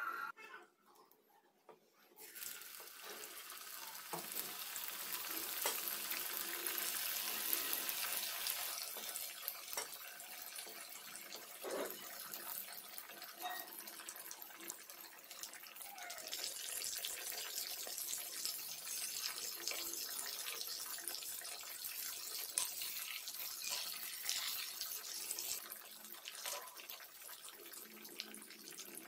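Marinated fish pieces deep-frying in hot oil in a pan, a dense sizzle full of small crackles that starts about two seconds in.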